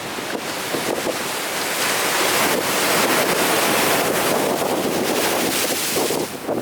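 Big ocean surf crashing and rolling onto the shore: a dense wash of noise that swells to a peak about halfway through and eases off near the end.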